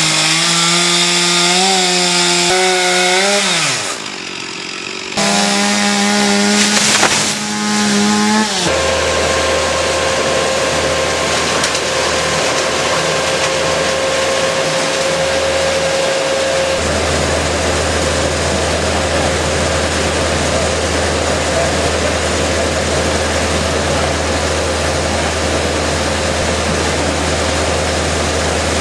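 Chainsaw running at high revs in two bursts with a short drop in between, cutting wood. After about eight and a half seconds it gives way to the steady drone of a heavy engine running at constant speed.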